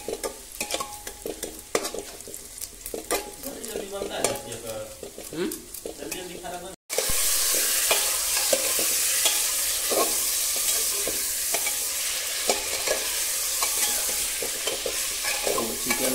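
A steel spatula scrapes and clicks against a metal pot as sliced onions fry in oil. After a brief dropout about seven seconds in, a much louder steady sizzle takes over as raw chicken pieces fry in the hot oil, stirred with further spatula scrapes.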